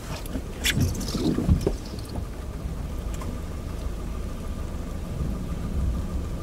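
Low, steady rumble of a car idling, heard from inside the cabin, with a few clicks and knocks in the first two seconds and a faint steady high tone coming in about halfway through.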